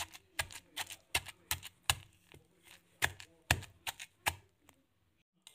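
A wooden pestle pounding a wet paste of prahok, smoked fish and chilies in a terracotta mortar, with about two to three dull knocks a second. The knocks stop about four seconds in. This is the blending stage, where the ingredients are pounded together.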